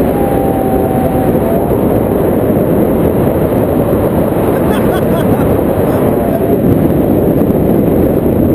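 Wind rushing over the microphone in paragliding flight: a loud, steady, low rumble.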